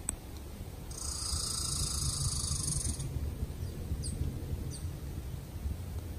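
Outdoor ambience of a steady low rumble. About a second in comes a high buzzing trill lasting about two seconds from a small wild creature, followed by two brief high chirps.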